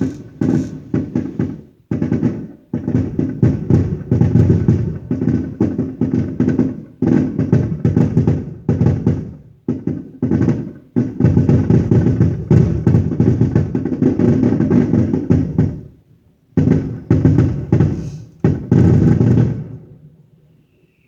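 Fireworks going off in rapid barrages of bangs and crackles, in runs of a few seconds with short pauses between them, dying away near the end.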